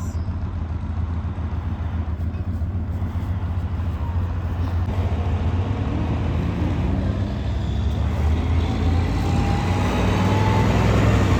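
A motor vehicle's engine running with a steady low hum that grows gradually louder, a faint rising whine coming in near the end as it picks up speed.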